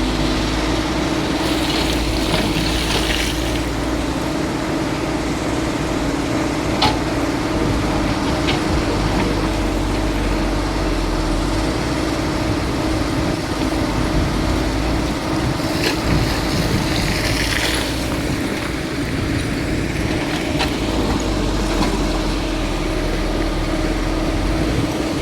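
Excavator engine running steadily, with two short spells of hissing and a few sharp knocks.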